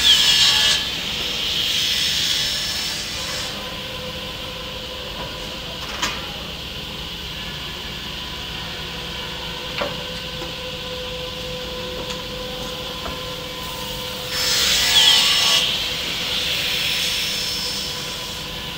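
Automatic-feed wood cutting saw running with a steady hum, cutting through planks twice: a loud burst of sawing at the start and another about fourteen seconds in, each with a brief falling whine. A couple of sharp knocks come in between.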